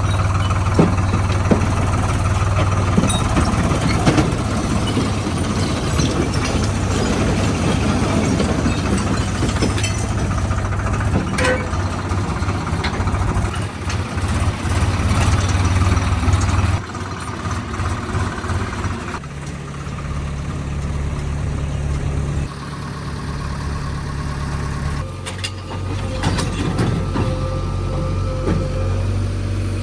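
Diesel engine of heavy earth-moving machinery running steadily. Its sound changes abruptly several times in the second half.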